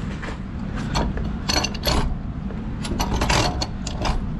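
A brass float valve being turned by hand onto threaded pipe, with irregular metallic clicking and rattling from its fittings as it turns. A steady low rumble runs underneath.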